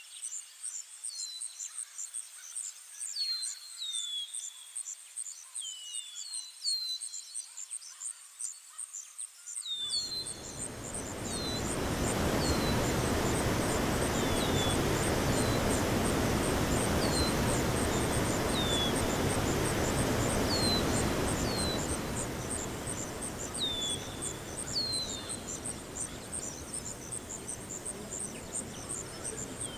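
Outdoor ambience: crickets trill steadily while small birds give short falling chirps every second or two. About ten seconds in, the rush of fountain and waterfall water comes in, loudest in the middle, then eases off somewhat after about 22 seconds.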